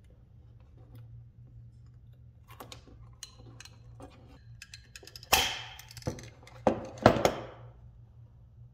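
Beetro TC0246 hand pop-rivet gun setting a rivet in an aluminium flashlight bracket: small clicks as the rivet is placed, then four sharp metallic clacks as the handles are squeezed, the loudest near the end.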